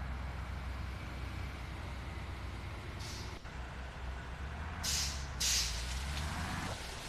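Tour bus engine running at a steady low rumble, with a faint air hiss about three seconds in and two loud, short air-brake hisses around five seconds. The engine rumble drops away near the end.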